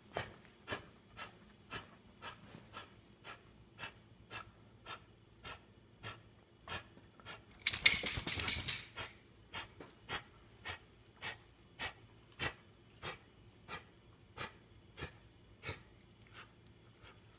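Sick dog breathing in short puffs, about two a second, broken by a loud coughing fit of about a second and a half near the middle.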